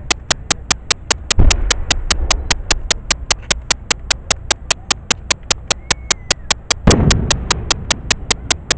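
Aerial fireworks shells booming twice, about a second and a half in and again some five seconds later, each followed by a rumble that dies away. A steady rapid ticking, about five ticks a second, runs underneath.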